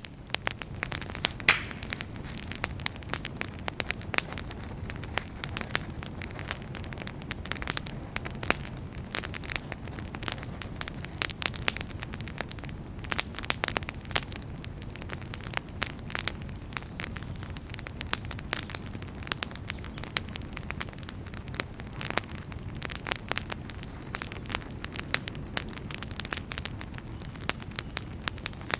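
Wood fire burning in a fireplace, with many sharp, irregular crackles and pops over a steady low rumble.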